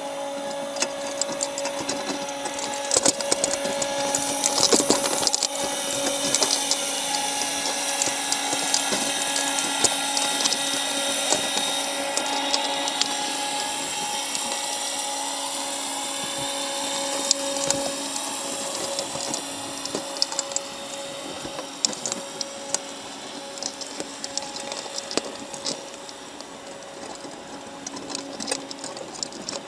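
Steady machine hum with a higher whine that slowly drifts in pitch, overlaid with frequent sharp clicks and rattles.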